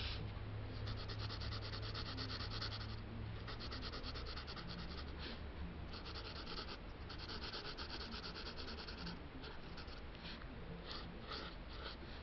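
Pencil scratching on sketchbook paper in runs of quick back-and-forth strokes, then shorter separate strokes near the end.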